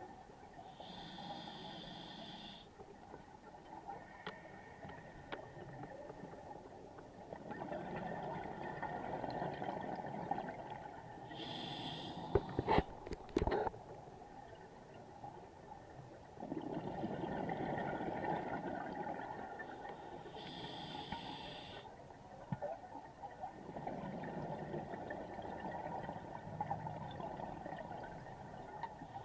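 A scuba diver's regulator breathing underwater, slow and regular: a short hissing inhalation about every nine seconds, each followed a few seconds later by a long rush of exhaled bubbles. A few sharp knocks come about halfway through.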